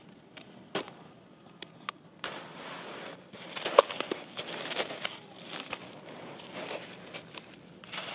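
Hands crumbling and squeezing wet, gritty gravel and soil against a cast sandy-concrete block: scattered crunches and clicks at first, turning into denser crunching about two seconds in, with one sharp crack near the middle.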